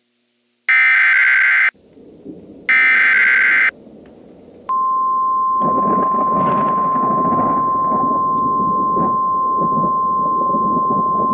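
The last two of three EAS SAME header data bursts, each a harsh digital buzz about a second long. About four and a half seconds in, the NOAA Weather Radio 1050 Hz warning alarm tone starts and holds as one steady high tone, the signal that a warning broadcast follows. Under it runs a loud noise of thunder and rain that swells up about a second after the tone begins.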